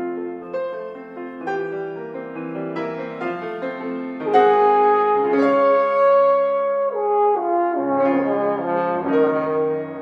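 French horn playing a melody over a grand piano accompaniment played back by a self-playing Steinway Spirio piano. The first few seconds are quieter, with shorter notes. A little after four seconds the horn comes in louder, with long held notes.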